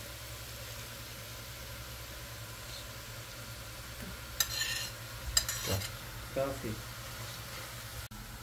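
Fork scraping against a plate as chopped herbs and green onions are pushed into a pot of frying chicken, over a steady faint sizzle. A few short scrapes and clinks come in the second half.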